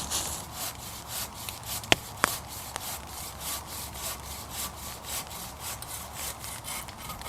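An improvised bow saw with a Bahco blade cutting wood, a steady back-and-forth rasp at about three strokes a second. Two sharp clicks stand out about two seconds in.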